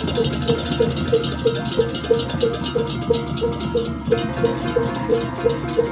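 Balinese baleganjur gamelan playing: a small gong strikes a steady beat about three times a second over fast crashing cymbals and drums. Ringing gong tones join about two-thirds of the way through.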